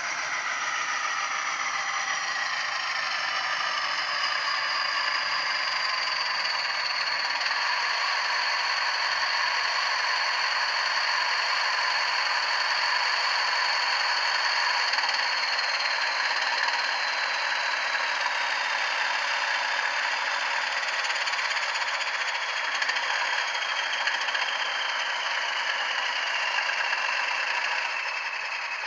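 Soundtraxx Econami DCC sound decoder playing a Class 20 diesel engine sound through a Bachmann model locomotive's small speaker. The engine runs steadily under power, with a whine that falls slowly in pitch as the loco slows to a stand, and the sound drops in level near the end.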